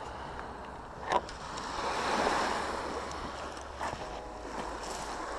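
Small waves washing gently on a shingle beach, with one sharp knock about a second in.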